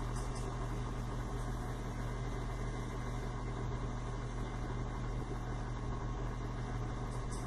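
KitchenAid stand mixer's motor running at a steady hum, turning the pasta sheet roller attachment as a thin sheet of pasta dough feeds through.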